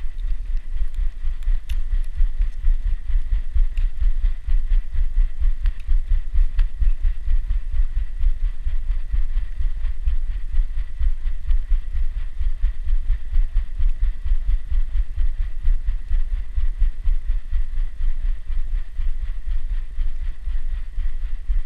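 Fast, rhythmic low thumping and rumble picked up by a GoPro strapped to a dog's body as the dog moves, with a faint steady high tone over it.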